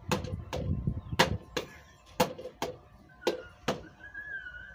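Sharp hand slaps and claps in a steady rhythm, coming in pairs about once a second, four times. A faint wavering whistle-like tone comes in near the end.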